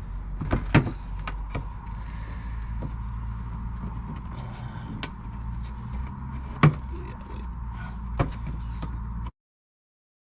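A few sharp plastic knocks and clatters as a car's plastic bumper cover is worked loose and handled, the loudest about two-thirds of the way through, over a steady low hum. The sound cuts out completely near the end.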